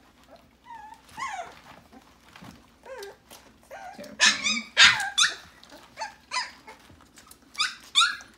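Siberian husky puppies about two and a half weeks old squealing and yelping in short, high-pitched cries that fall in pitch. They are quieter at first and get loud from about four seconds in, with another loud burst near the end. These are hungry puppies fussing to nurse from their mother.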